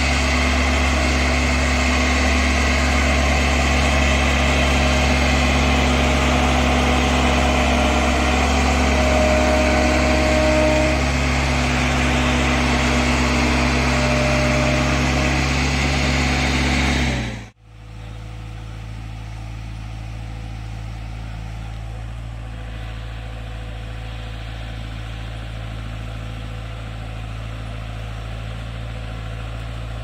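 Kartar crawler combine harvester's diesel engine running steadily with a constant hum. About two-thirds of the way through the sound cuts off abruptly and comes back quieter and lower-pitched.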